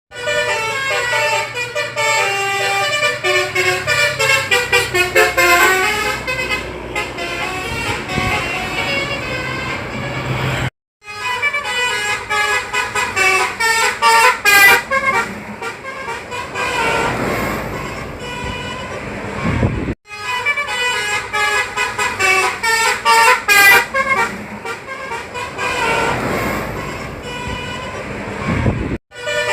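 Bus 'telolet' horn, a multi-trumpet musical air horn, playing quick melodic runs of stepped tones. It comes in three long stretches broken by short silences, with a swell of road noise twice.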